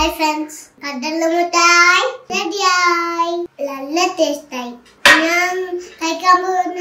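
A young girl's high voice singing and speaking in a sing-song, with a long held note about two seconds in and short phrases after it.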